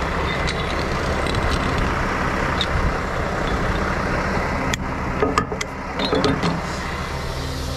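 Heavy wrecker truck's diesel engine running steadily at idle, with a few short clicks and rustles about five to six seconds in.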